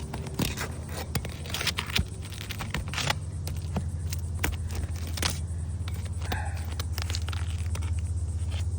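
Asphalt roof shingle being worked loose and slid out from under the shingles above: irregular scraping, crackling and sharp clicks as the brittle shingle drags and tears, over a steady low hum.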